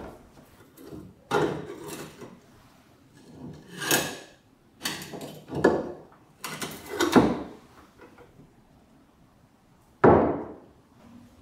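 Antique cast-iron charcoal box iron being handled: its latch and hinged lid worked open and shut in a run of about five metal clunks and scrapes, with one louder, sharp clunk near the end as the iron meets the wooden tabletop.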